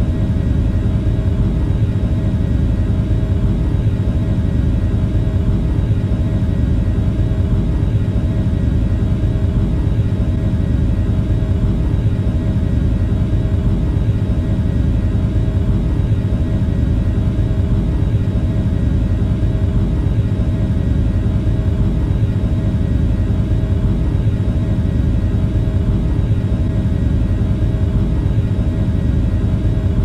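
Boeing 737-800's CFM56 turbofan engines running at takeoff thrust, heard from inside the cabin: a steady, loud rumble with a few steady hum tones above it, unchanging throughout.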